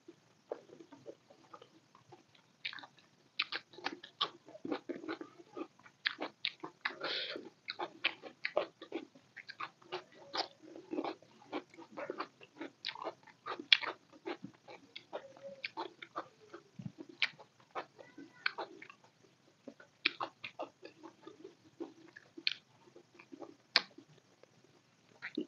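Close-miked chewing and lip-smacking of mouthfuls of chicken biryani: an irregular run of short wet clicks and smacks, with soft squishing of rice as fingers mix it on a steel plate.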